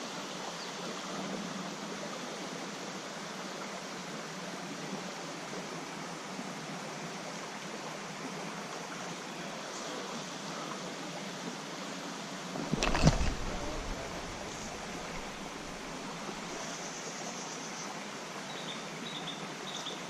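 Small trout stream running: a steady rush of flowing water. About two-thirds of the way through, a single loud, deep thump or splash stands out over it for about a second.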